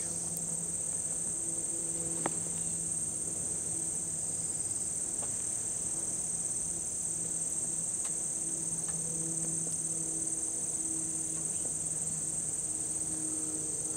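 Insects buzzing in one steady, unbroken high-pitched drone, with a faint click about two seconds in.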